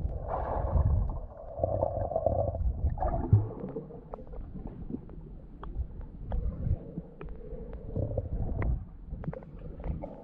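Muffled water movement and bubbling as picked up by a camera underwater, a low churning rumble with scattered sharp clicks.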